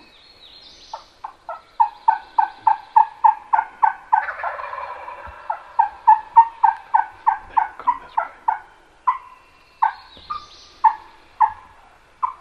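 Wild turkeys: a long, steady run of yelps, about two to three a second, each note dropping in pitch, with a gobbler gobbling over them about four seconds in.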